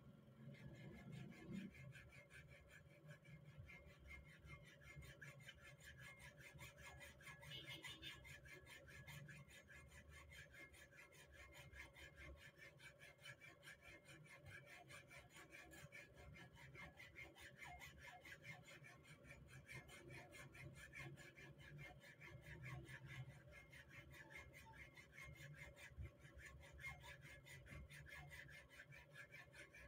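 Faint, steady back-and-forth strokes of a hacksaw cutting a groove for the retaining pin into a rifle ejector clamped in a bench vise.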